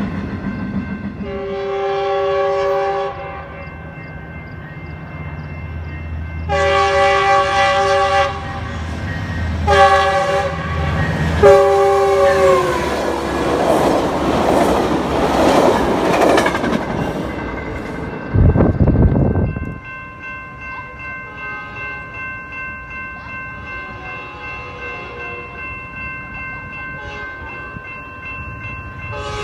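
A Metrolink commuter train's horn sounds the grade-crossing signal: long, long, short, long, with the pitch dropping at the end of the last blast as the train passes. The bilevel train then goes by close with loud wheel and rail noise, followed by a brief loud rush. In the last third, a grade-crossing warning bell rings steadily, about one and a half strokes a second.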